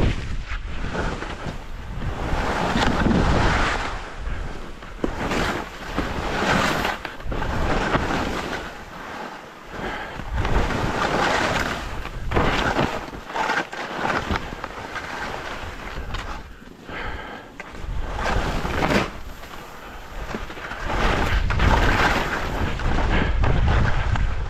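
Wind buffeting the microphone of a camera carried while skiing downhill, heaviest at the start and again near the end. Under it is the rush of skis over snow, swelling and easing every second or two from turn to turn.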